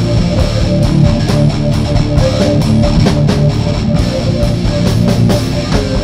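Loud heavy rock music, distorted guitars over a steady drum beat.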